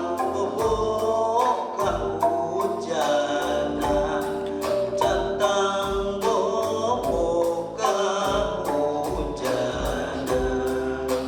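Singing over a calung renteng, a Sundanese bamboo xylophone of tied slats, struck in a steady quick rhythm, with deep thumps on the beat.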